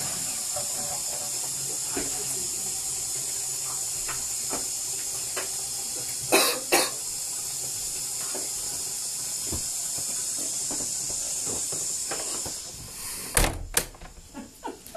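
Steady hiss of running water in a bathroom, which stops about twelve seconds in. Two sharp knocks come just past halfway, and a few handling knocks follow near the end.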